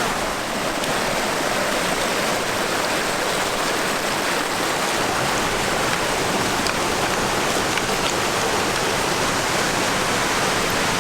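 Alpine mountain stream rushing over rocks, a loud steady rush of water.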